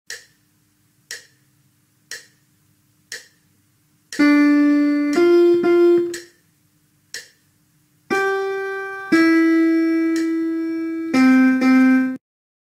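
Four metronome clicks a second apart count in, then a short melody in a piano sound: one note, two quick notes, a pause with only clicks, then a note, a longer held note and two quick notes. It is a rhythm-and-melody dictation fragment played for the listener to match to its written notation.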